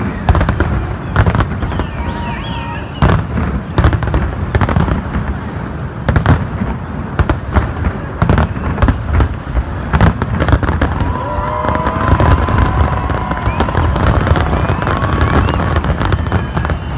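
A big fireworks display: a loud, rapid barrage of bangs over a continuous low rumble, with a few whistling tones through it.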